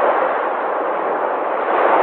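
Sea waves washing on the shore: a steady rushing surf noise that swells a little near the end.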